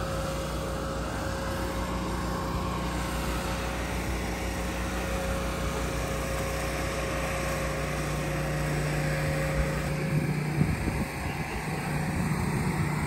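An engine running steadily at a constant speed, a low, even hum with a steady tone over it.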